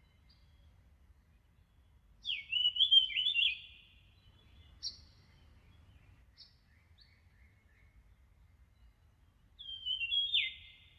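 A songbird singing two quick warbled phrases of falling, stepping notes, about seven seconds apart. A few short single chirps come between them.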